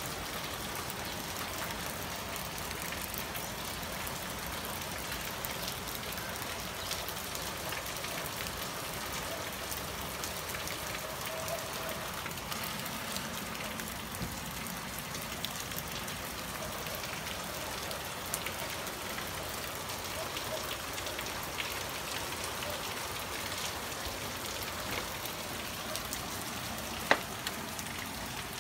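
Steady rain falling on a garden, lawn and paving tiles: an even hiss dotted with the ticks of nearby drops. One sharp tap stands out near the end.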